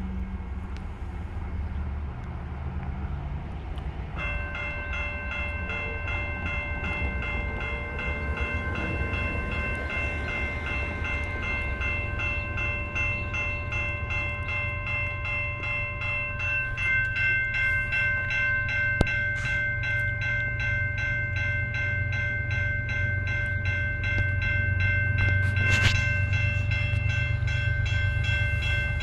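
Railroad grade-crossing warning bell starting to ring about four seconds in and ringing on in a fast, steady pattern, the signal that a train is approaching. A low rumble underneath grows louder toward the end.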